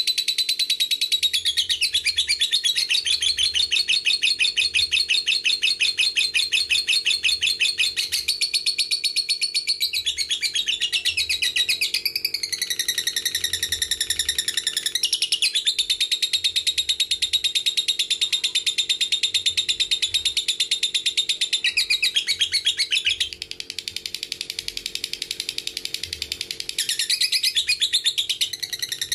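Lovebird ngekek: a long, unbroken high-pitched chattering trill of very rapid repeated notes, briefly softer for a few seconds near the end.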